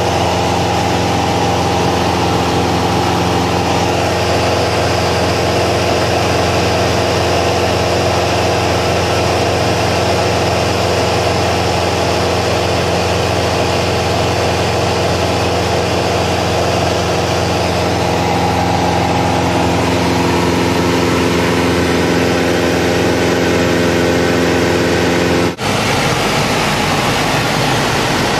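Aircraft cabin noise on approach to landing: a steady engine drone with a hum of several steady tones. About three-quarters of the way through it changes abruptly to a duller rumble without the tones.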